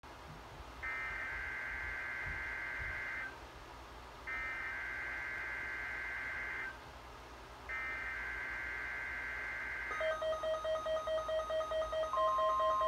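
NOAA Weather Radio SAME data header: three warbling digital bursts, each about two and a half seconds long and about a second apart. A weather alert radio's alarm then starts beeping about four times a second, and a second before the end the steady 1050 Hz warning alarm tone joins it.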